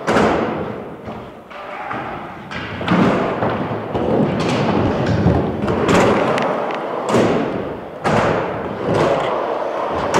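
A series of heavy thumps, about one to three seconds apart, each followed by a rush of noise that dies away.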